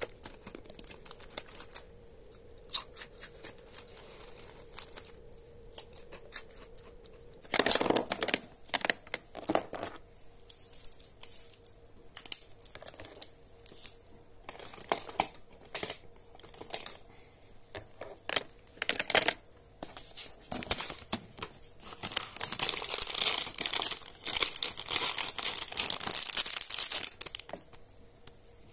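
Foil snack bag being crinkled and torn open, with loud rustling about a third of the way in and a long dense crinkling near the end. Before it, light clicking of a computer mouse and keyboard.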